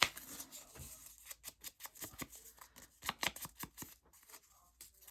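Scissors cutting a piece of paper: a run of short, irregular snips.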